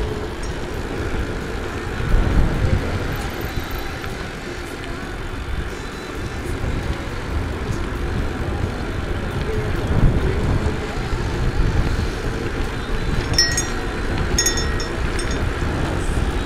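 Wind rushing and buffeting over the microphone of a handlebar camera on a moving bicycle, rising and falling in gusts. Near the end a few faint, short high rings sound.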